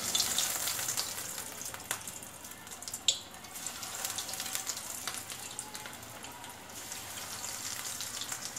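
Vegetable balls deep-frying in hot oil in a kadhai: a steady sizzle with crackling pops, and one sharper, louder pop about three seconds in.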